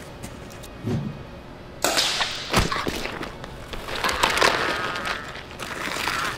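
Staged street fight with a staff: a short grunt, a sudden loud hit about two and a half seconds in, then a stretch of further strikes and scuffling with a man's pained cries.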